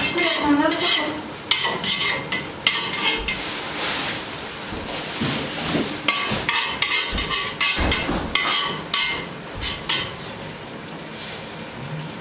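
Metal skimmer scraping and knocking against an aluminium pot as julienned carrots are stirred, several sharp clanks over a steady frying sizzle: the carrots are frying in oil as part of the plov base.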